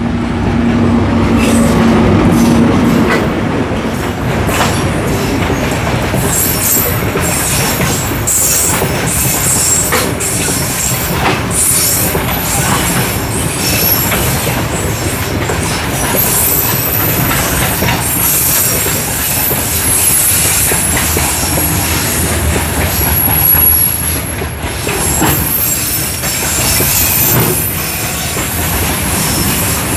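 A loaded diesel freight train passing close by: the locomotive's engine hums for the first few seconds, then the freight wagons roll past, with wheels clicking over rail joints and high, thin wheel squeal in the middle part.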